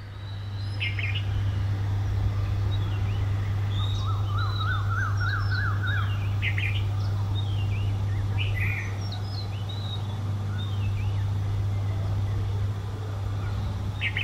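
Small birds chirping and calling, with short high whistled notes scattered throughout and a fast wavering trill from about four to six seconds in, over a steady low hum.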